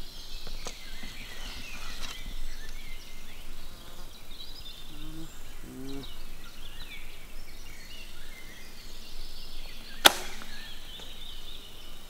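A bow shot about ten seconds in: a single sharp crack as the bowstring is released and the arrow is loosed. Birds chirp in the background throughout.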